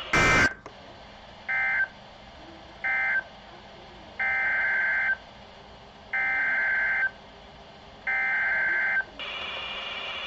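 Emergency Alert System digital data bursts (SAME tones). Three short bursts close one alert message, the first much louder. Then three longer bursts of about a second each form the header of the next alert, with faint hiss in the gaps.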